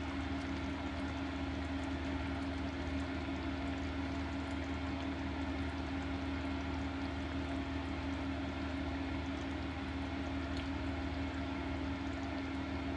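Butter, wine and fish simmering and bubbling in a frying pan while double cream is poured in, with a fine steady crackle over a constant low hum.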